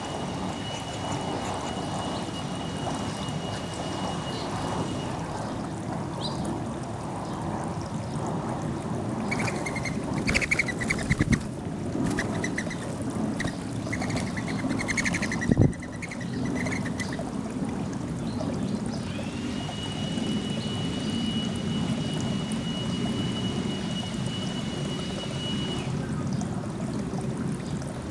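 Backyard birds calling in two runs of rapid chirps, over a steady rushing background noise. A thin, steady high tone comes and goes.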